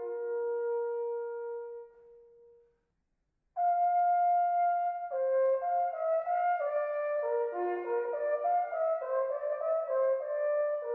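Three Büchel, Swiss folded wooden natural horns, playing together in harmony. A held chord fades out about two seconds in, there is a short silence, then they come back in loud on a sustained chord and move into a running melody of changing notes.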